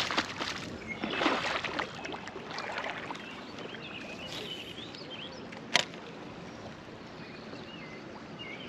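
River water sloshing and splashing in the first two seconds, then a steady faint outdoor hiss with birds chirping. A single sharp click about six seconds in is the loudest moment.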